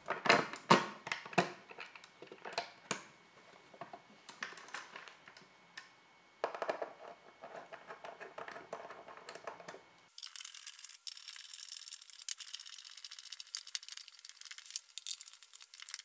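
Clicks, scrapes and rustling as a USB wall outlet and its stiff wires are pushed into a plastic electrical box and screwed in place with a screwdriver. About ten seconds in, the sound turns thin and hissy, with quick small ticks.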